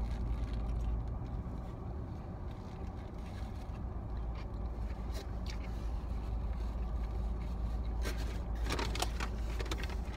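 Steady low rumble of a car, heard from inside the cabin, with a few faint clicks and a short run of crackly rustling about eight seconds in.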